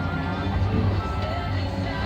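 Background music with a steady low hum underneath.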